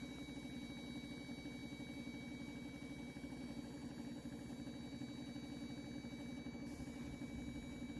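Paint-spraying equipment's motor running with a steady, unchanging hum.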